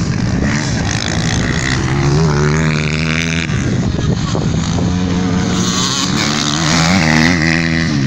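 Dirt-bike engines racing on a dirt track, revving up and down in pitch as the riders work the throttle and shift gears. The loudest stretch comes near the end as bikes pass close by.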